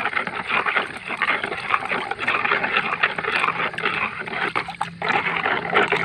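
Water sloshing and splashing in a plastic basin as it is stirred by hand to dissolve fertilizer into it, an irregular, crackly churning.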